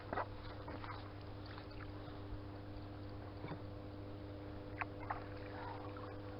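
A few short knocks and light water sounds in a small fishing boat, over a steady low hum.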